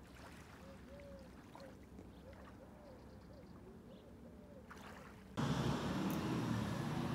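Faint, calm seashore ambience with a few short, faint calls; about five seconds in it cuts off abruptly to much louder, steady outdoor street noise with a deep rush.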